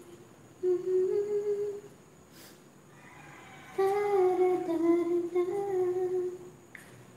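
A person humming a slow tune in two phrases of long held notes, with a short pause between them.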